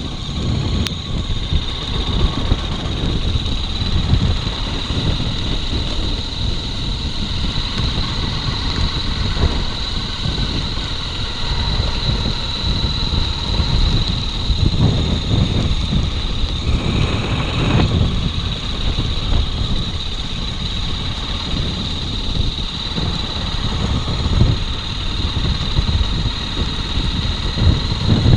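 Motorcycle engine running steadily while riding, with wind rumble on the microphone and a steady high-pitched tone above it.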